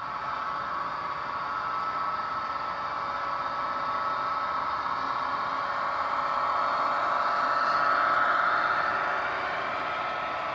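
Model freight train running past on the layout track: a steady whir of the locomotive and rolling wheels, growing louder to its closest pass about eight seconds in, then easing.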